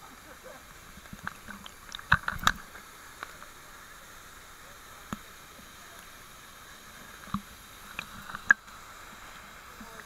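Steady rush of a waterfall, with water sloshing and splashing right at the microphone as the camera rides at the pool's surface; a cluster of sharp splashes comes about two seconds in and a few more near the end.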